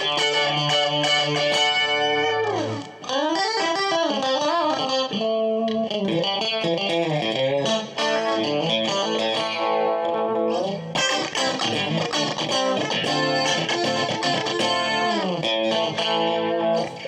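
Westone Spectrum GT electric guitar played through an amplifier with a clean tone: sustained chords and picked lines, with wavering bent and vibrato notes a few seconds in.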